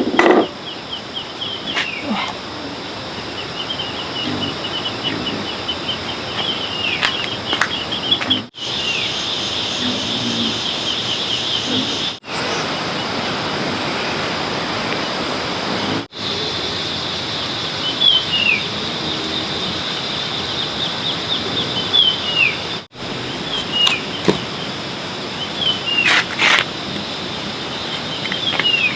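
Outdoor rural ambience: a steady high chirring with birds chirping in short falling calls. The sound drops out briefly four times.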